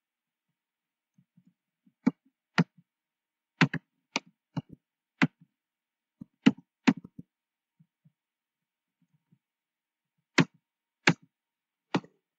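Computer keyboard keystrokes: about a dozen separate clacks at an uneven pace, with silence between them.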